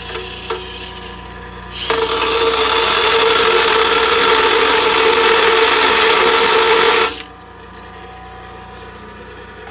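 Ryobi bench grinder running. From about two seconds in until about seven seconds, a steel spark plug socket turned by a power drill is pressed against the wheel to grind down its outside wall, giving a loud, steady grinding hiss with a whine. Then the socket comes off and the grinder keeps running with a quieter hum.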